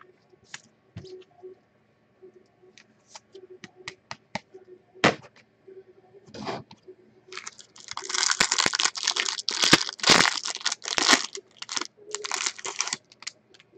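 Scattered light clicks and taps of trading-card packaging being handled, then several seconds of tearing and crinkling in the second half as the wrapping of the next card pack is ripped open.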